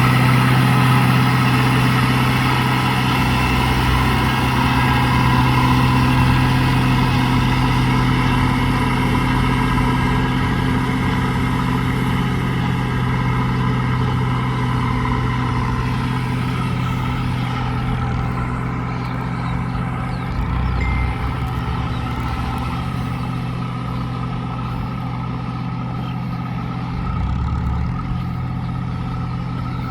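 Ford 6640 four-wheel-drive tractor's diesel engine running steadily with a constant low hum, slowly growing fainter.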